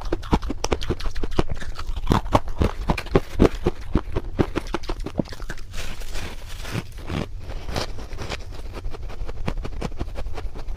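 Fluffy freezer frost being bitten and chewed close to a lapel microphone: a quick, irregular run of crunches and squeaky crackles.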